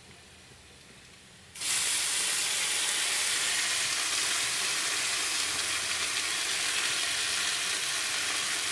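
Dal frying in hot oil in a pan: a steady sizzle that starts suddenly about a second and a half in.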